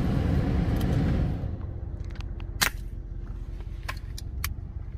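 One shot from a PCP air rifle, a short sharp report about two and a half seconds in, with a few lighter clicks around it. It is fired from inside a pickup's cabin, with the truck's low rumble underneath.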